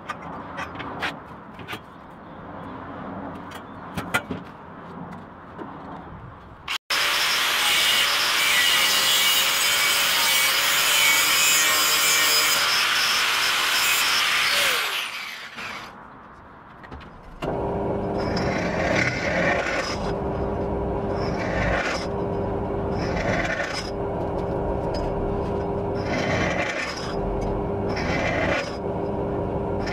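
An angle grinder cuts into a steel bicycle tube with a loud, even hiss for about eight seconds. After a short pause a drill press hums steadily and bites into a steel tube in repeated passes about every two seconds, drilling a row of holes. In the first few seconds there are light knocks and clicks as the bicycle is handled.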